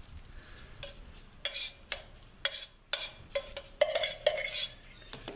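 A utensil clinking and scraping against a metal camp cooking pot, about ten short irregular knocks and scrapes, some of them ringing briefly, as cooked ramen noodles are dished out.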